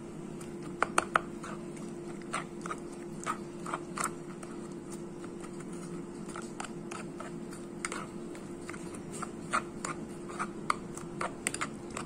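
A spoon stirring sliced onions and chillies in liquid in a plastic bowl: irregular small clicks and taps against the bowl, over a steady low hum.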